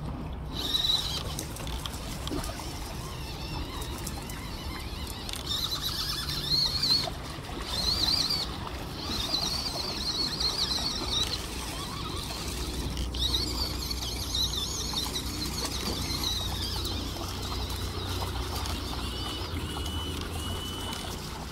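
Traxxas TRX-4M mini crawler's small brushed electric motor and geartrain whining in spells as it drives over sand, the high pitch wavering with the throttle, under a steady low rumble.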